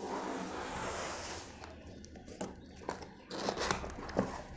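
Cardboard laptop box being moved on a table and opened by hand: a scraping hiss for the first second or so, then scattered knocks and clicks, and a louder rustle about three and a half seconds in.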